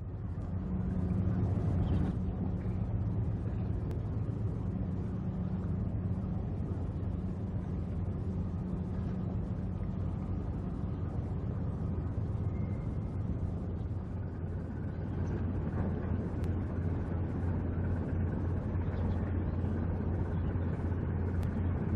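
Ship's diesel engine droning steadily, a deep low hum over a rumbling wash of noise.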